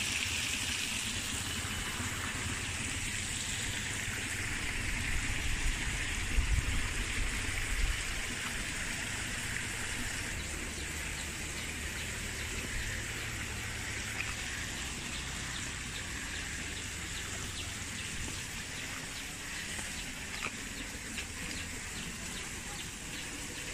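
Outdoor country ambience: birds calling over a steady high-pitched hiss, with a low rumble that swells about five to eight seconds in.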